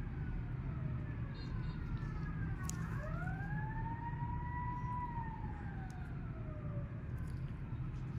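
A siren wailing in slow rising and falling glides, with one long sweep that climbs from about three seconds in, holds, and falls away near the end, over a steady low rumble.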